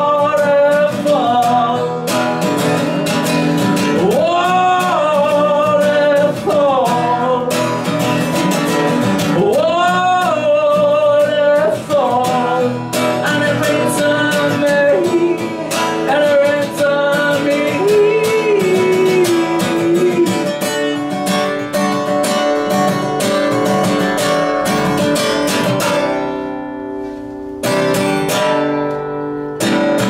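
A man singing long, sliding wordless vocal lines over a strummed acoustic guitar. The voice stops about two thirds of the way through and the guitar strums on alone, dropping quieter briefly before a few more strums near the end.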